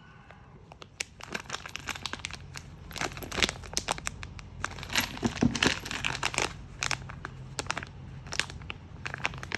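Plastic packaging crinkling and rustling as it is handled, in irregular crackly bursts that start about a second in, over a steady low hum.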